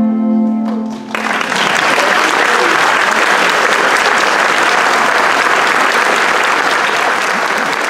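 The music's final held chord breaks off about a second in, and an audience breaks into steady applause.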